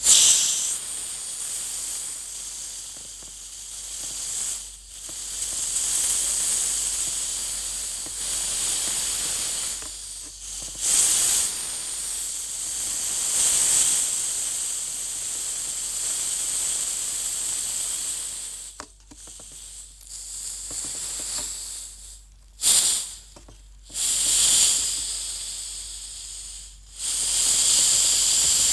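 Carbonated soda hissing and fizzing as it is opened, a sharp hiss at the start running into a steady high fizz. The fizz breaks off briefly several times and starts up again.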